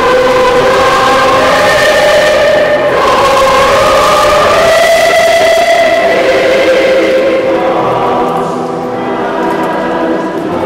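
Choir singing long, held notes in a reverberant church, growing quieter about eight seconds in before rising again near the end.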